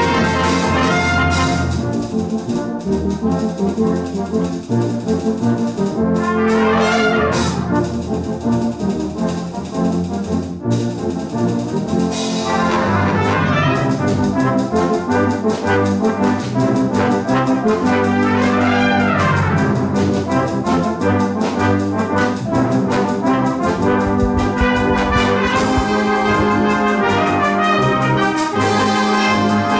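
Brass band playing live: cornets, horns, euphoniums and tubas sounding together in full, sustained chords, loud throughout.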